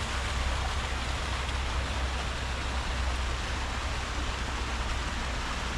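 Small river flowing: a steady, even rush of water with a low rumble underneath.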